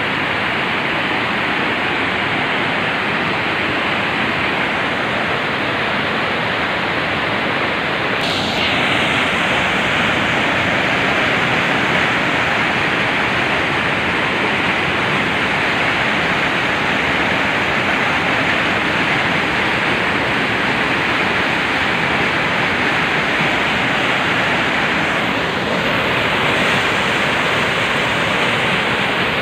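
Mountain river rushing and splashing over boulders in whitewater cascades, a steady, loud wash of water noise.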